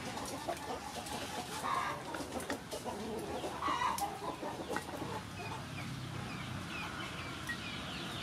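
Chickens clucking, with a run of short high chirps in the second half, over the clinks and scrapes of a ladle stirring in a metal cooking pot.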